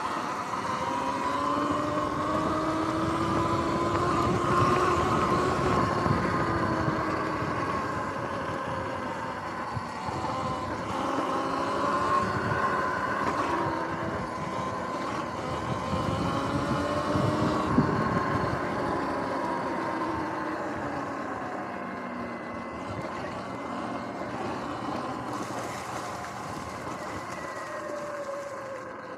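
Sur-Ron electric dirt bike's motor and drivetrain whining, several tones rising and falling together as it speeds up and slows down, over a steady rough noise. It is loudest about 5 and 18 seconds in and eases off near the end.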